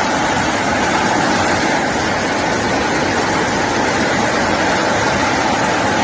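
A loud, steady rushing noise of water, even and unbroken throughout, typical of floodwater torrents or torrential rain.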